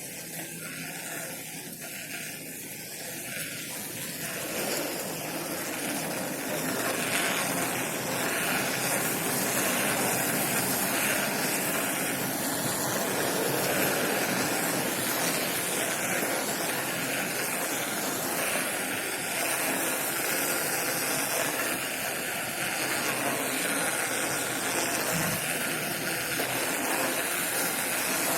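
Steady rushing noise of wind over the microphone and tyres on the road while riding a bicycle, growing louder about five seconds in as the bike picks up speed.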